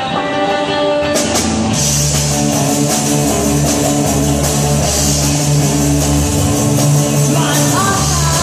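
Rock band music: sustained guitar notes, then drums and bass come in about a second in and the band plays on steadily. A voice begins singing near the end.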